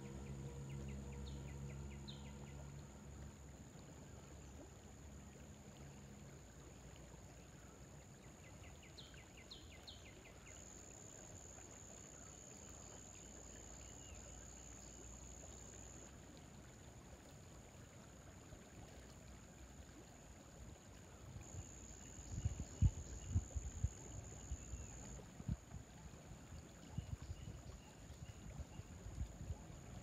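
Riverside outdoor ambience. A steady high-pitched buzz runs throughout and swells twice for a few seconds. There are a few short bird chirps in the first ten seconds, a low hum fades out in the first few seconds, and irregular low gusty rumbles come in the last third.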